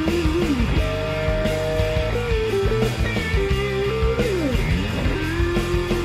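Background rock music led by a guitar playing a melody with sliding, bending notes over a full backing.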